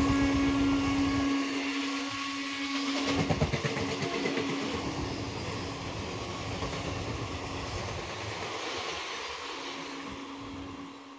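Passenger train's coaches rolling past and away on the track: wheels clattering over rail joints, with a cluster of knocks about three seconds in, over a steady droning tone. The sound fades as the train recedes.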